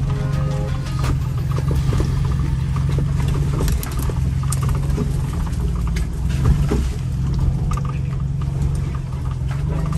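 Four-wheel-drive vehicle driving an off-road track: a steady low engine and tyre rumble with scattered knocks and rattles from the rough ground.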